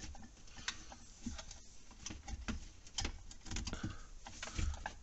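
Plastic head of a motorised zone valve being worked onto its brass valve body by hand, giving a scatter of faint, irregular small clicks and scrapes as it is lined up.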